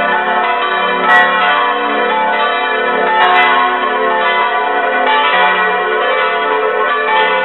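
Several swinging church bells, cast bells tuned to F♯, A, B and D, ringing together close up in the bell chamber. Their clappers strike in an uneven, overlapping succession, and each stroke rings on under the next.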